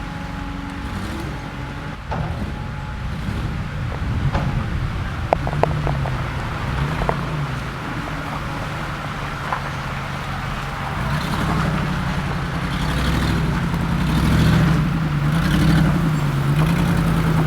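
Land Rover Discovery 2's engine working under load while driving off-road. Its speed rises and falls repeatedly in the second half as the throttle is worked. A few sharp knocks come about four to seven seconds in.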